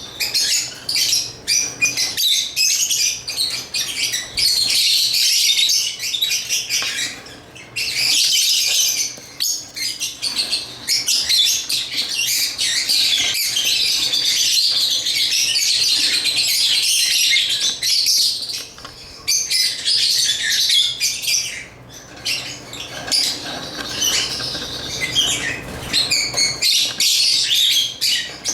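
Lovebirds chirping and chattering in a dense, high-pitched stream of rapid calls, broken only by a few short pauses.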